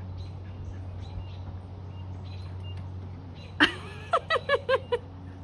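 A dog giving a quick run of about six short, high-pitched yips that bend in pitch, starting suddenly a little past halfway, over a steady low hum.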